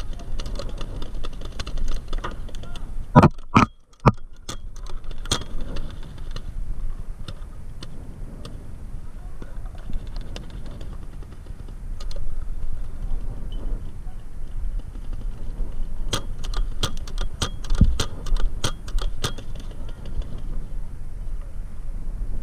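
Rattling and clicking of paintball gear on the move, with a few loud knocks about three seconds in and a quick run of sharp clicks and pops later on, over a low rumble.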